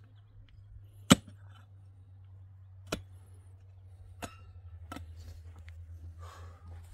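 Four sharp, separate knocks, the loudest about a second in, over a steady low hum.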